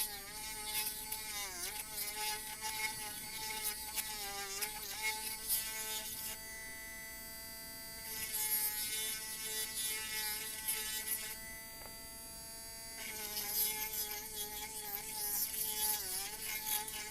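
Mini electric drill running on its high speed, a steady buzzing whine that sags and wobbles in pitch with scraping as the spinning bit is twisted against the board to widen the hole. Twice in between it runs free with a steadier, cleaner whine.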